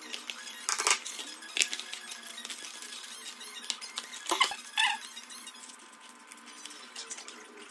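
Scissors snipping through corrugated cardboard: several separate cuts, the loudest about a second in and two more just past the middle, with small ticks of handling in between.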